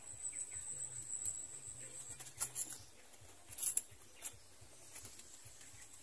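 Short crackles and rustles of dry vegetation, a cluster about two and a half seconds in and the loudest a second later, over a steady high-pitched insect drone that is strongest in the first two seconds.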